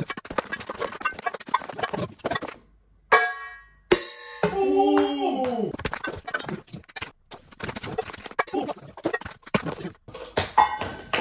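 Ping-pong balls bouncing down wooden stairs: rapid light taps on the treads and clinks off metal frying pans and bowls, with a ringing metallic ping a little after three seconds. About four seconds in comes a falling, voice-like tone, with music-like sound mixed in.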